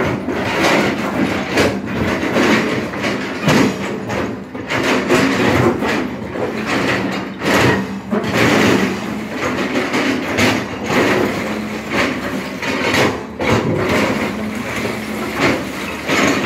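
SANY hydraulic excavator digging in broken rock: its engine keeps up a steady hum while the steel bucket scrapes and knocks against the rock, and loose stones clatter irregularly.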